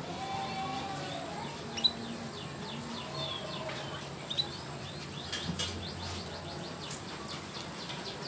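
Young canary chirping: short, high chirps in scattered runs, coming quicker from about five seconds in.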